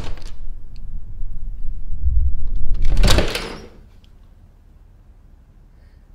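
A closet door shuts with a sharp click. A low rumble then builds and peaks in a loud, noisy hit about three seconds in, and dies away within a second.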